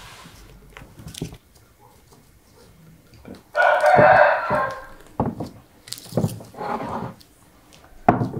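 A rooster crowing once, a loud crow of about a second and a half, a little over three seconds in, followed by a few shorter, quieter sounds.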